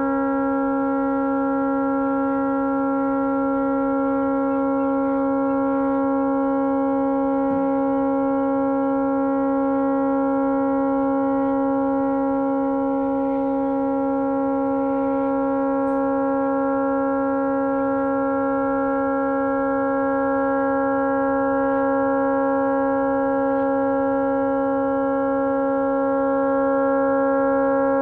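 Tugboat horn stuck on, sounding one unbroken, steady blast. The horn has malfunctioned and will not shut off.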